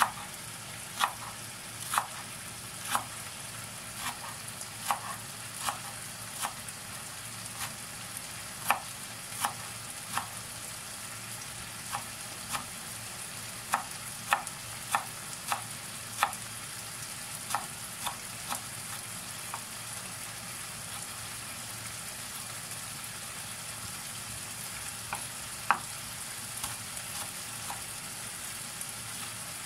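Chef's knife chopping parsley on a bamboo cutting board: sharp knocks roughly once a second, thinning out in the second half. Under them, a steady sizzle of chicken cooking in a pan on the stove.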